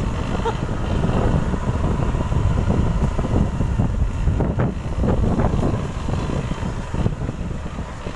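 Wind buffeting the microphone on a moving motorcycle, with the engine running and the tyres on a rough dirt track beneath it.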